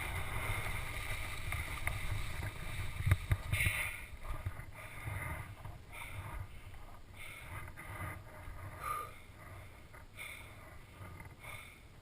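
A skier breathing hard close to a helmet-mounted camera, short noisy breaths about once a second. Under it runs a low rumble with a few knocks, loudest in the first few seconds and then easing off.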